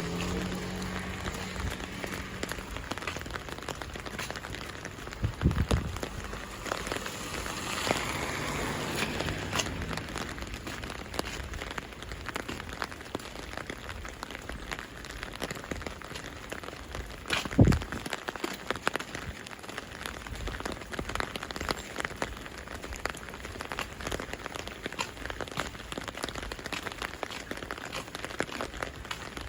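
Winter rain falling steadily, with many separate drops ticking on surfaces. Two low thuds come through it, about five seconds in and, louder, about seventeen seconds in.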